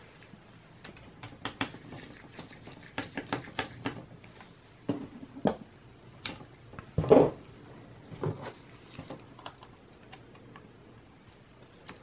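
Small irregular clicks and taps of a mini screwdriver and gloved fingers on a laptop's mSATA solid-state drive and plastic chassis, as the drive's retaining screw is undone and the drive is pulled from its slot, with a louder knock about seven seconds in.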